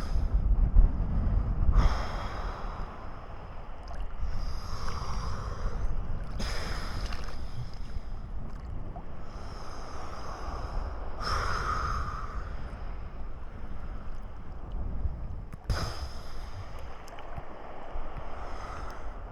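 Wind buffeting the microphone on a stormy sea shore, with a rushing swell of noise rising and falling every few seconds.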